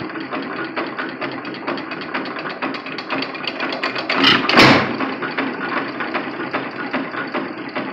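2 1/2 hp Nelson Brothers Jumbo hit-and-miss engine running unloaded: its flywheels coast with a steady run of mechanical clicks, and one loud bang of a firing stroke comes about four and a half seconds in.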